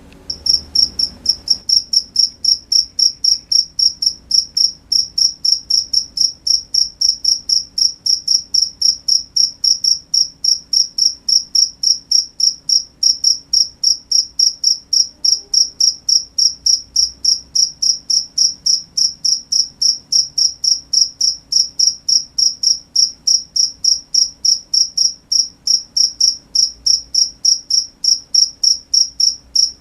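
A cricket chirping in a steady, even rhythm of high-pitched chirps, about three a second, cutting in abruptly right at the start.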